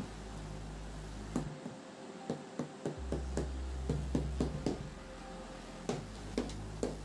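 Irregular knocks and taps as a pair of sneakers is handled and set against a wooden table, over a steady low hum; the taps bunch together in the middle and thin out near the end.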